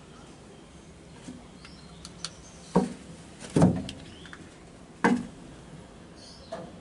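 A few dull knocks and clunks, the loudest three just under three seconds in, a moment later, and at about five seconds, with lighter taps between them. Faint short high chirps sound in the background.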